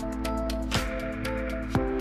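Background electronic music with a steady beat: a low drum hit about once a second, quick light ticks between, over held synth notes.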